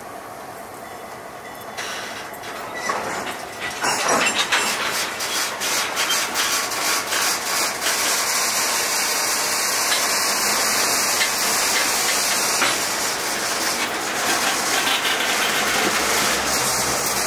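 Freight cars starting to roll and then passing at close range: steady rail rolling noise with clicks and clanks and a high hiss, growing louder about two seconds in and loud from about four seconds.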